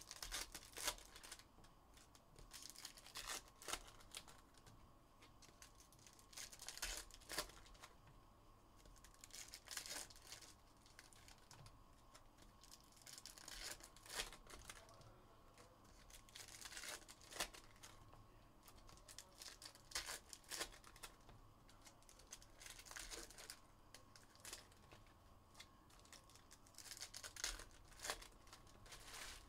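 Faint, irregular tearing and crinkling of wrappers as an Upper Deck Allure hockey card box and its packs are torn open, with scattered clicks and rustles of handling.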